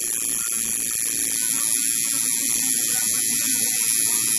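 Electric tattoo machine buzzing steadily as the needle works on skin.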